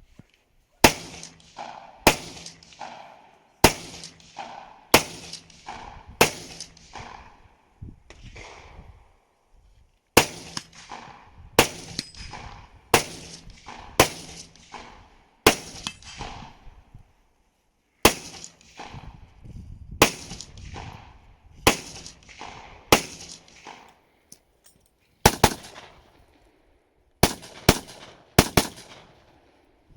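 Rifle shots fired in an IPSC rifle stage, about twenty of them: mostly single shots a second or so apart, in strings broken by short pauses, with a few quicker pairs near the end. Each shot is followed by a short echoing tail.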